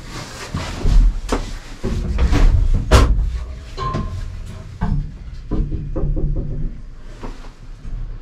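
Gondola cabin moving through the terminal station: a steady low rumble of machinery with a run of clunks, knocks and rattles, loudest about a second in and again near three seconds.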